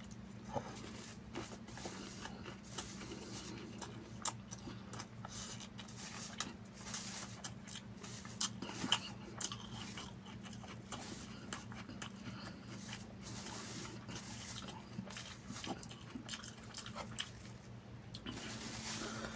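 Close-miked eating sounds of chicken biryani being eaten by hand: chewing, lip smacks and many soft clicks, with a steady low hum underneath.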